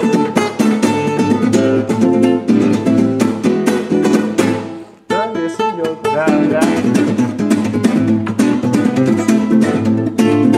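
Nylon-string guitar played in a fast rumba flamenco strum: a rhythmic down-up-strike-up pattern of percussive strokes on the strings carrying a melody. The playing breaks off for a moment about five seconds in, then picks up again.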